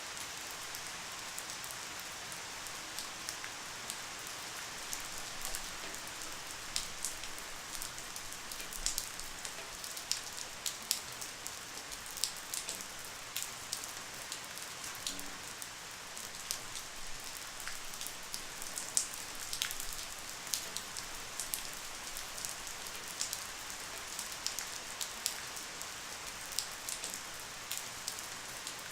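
Light rain falling steadily, a soft hiss with many scattered drops ticking on a surface.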